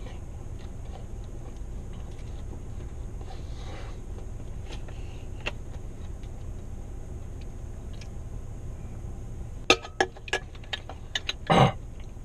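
Steady low hum in a car's cabin, with faint small ticks. A quick run of sharp clicks and clinks starts about ten seconds in, the loudest near the end.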